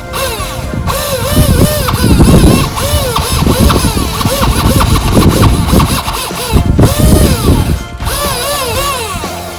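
Background music: a melody that bends up and down in repeated arches over a low pulsing beat.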